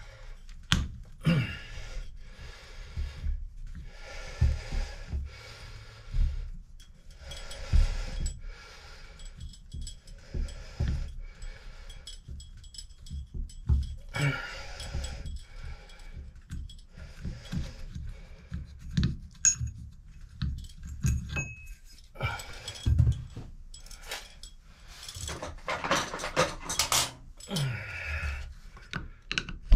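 Small metal clicks, taps and scrapes as a hex key works the set screw of a Moen Posi-Temp shower valve handle, with rustling handling noise in between and a louder rustle near the end.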